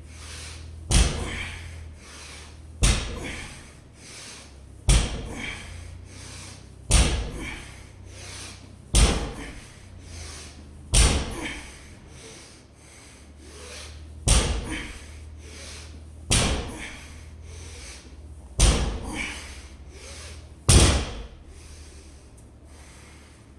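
A loaded barbell, 225 lb for deadlifts, set down hard on the floor ten times, about one rep every two seconds with a slightly longer pause after the sixth: a set of ten deadlift reps.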